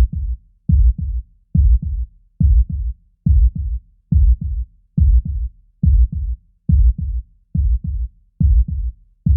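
Background music that is only a low, heartbeat-like double thump, a strong beat followed closely by a weaker one, repeating steadily about seventy times a minute.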